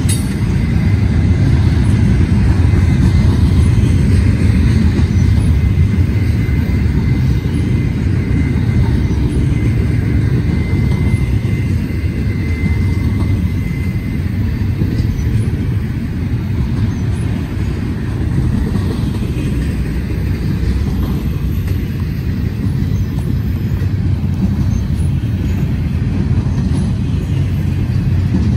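Double-stack intermodal freight train's well cars rolling past, a loud steady rumble of steel wheels on the rails, with a faint high squeal through roughly the first half.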